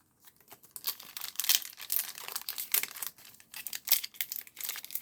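A Pokémon trading card booster pack's foil wrapper being torn open and crinkled by hand, a dense crackling rustle with many small sharp clicks that starts about a second in.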